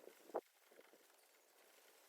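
Near silence: faint room tone with one short click about half a second in.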